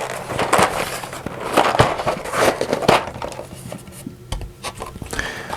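Plastic component tray and its clear plastic cover being handled: a run of light clicks, knocks and rustles as the lid is worked off the tray.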